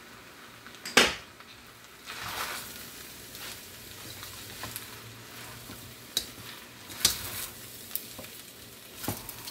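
Fried rice sizzling in a pan as it is stirred with a spatula, with several sharp knocks and scrapes of the spatula against the pan, the loudest about a second in.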